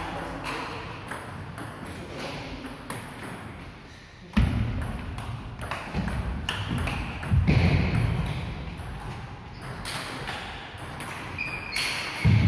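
Table tennis balls clicking off bats and the tabletop in rallies, several tables' play mixed together. There are three heavy low thumps (about four seconds in, about halfway and near the end) and a few short high squeaks.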